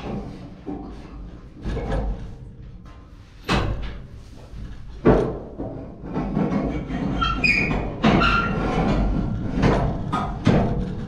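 Irregular metal knocks, thuds and clatter from hand work on a Van Dale silo unloader, with two sharp knocks about three and a half and five seconds in, then a busier run of clanking with brief ringing tones.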